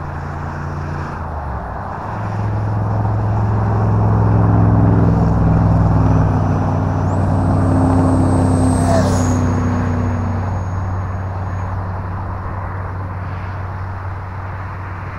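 Horizon Hobby Viper 70 mm electric ducted-fan RC jet flying by: a rushing roar that swells and fades over several seconds, over a steady low rumble. A thin high fan whine rises in pitch about seven seconds in, then drops about nine seconds in with a brief louder rush as the jet passes.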